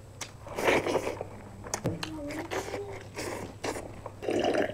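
Close-up eating sounds: chewing and mouth smacks, with fingers mixing rice and curry on plates.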